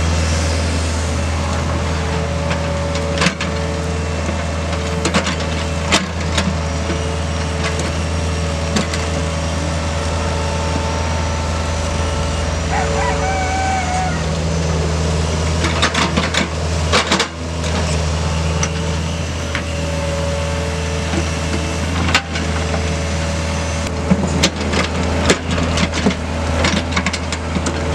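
Hitachi Zaxis 48U mini excavator's diesel engine running steadily under working load, with a steady hydraulic whine over it. Scattered knocks and clanks from the bucket and arm working the soil, a cluster around the middle and several more near the end.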